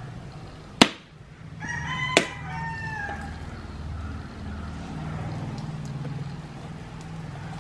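Two sharp knocks, about a second and a half apart, of a chopping knife striking a husked coconut's shell, the first the loudest. A rooster crows for about a second and a half around the second knock, over a low steady hum.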